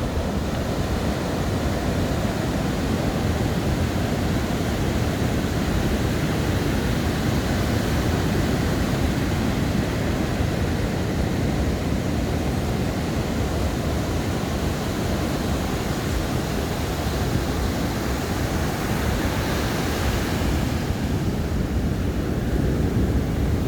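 Ocean surf washing onto a sandy beach, a steady rushing noise, with wind rumbling on the microphone. Near the end the wash turns brighter for a second or two.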